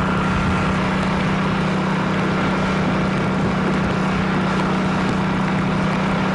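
Steady engine drone with a constant low hum, over outdoor noise, unchanging throughout.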